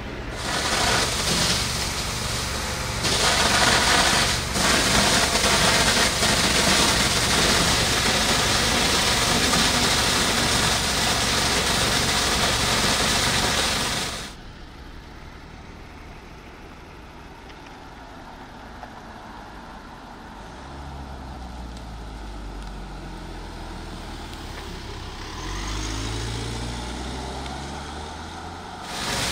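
Fire service vehicles' engines: a loud steady rush of noise over a pulsing low engine for the first half, then, after a sudden drop, a quieter vehicle engine driving, swelling twice near the end.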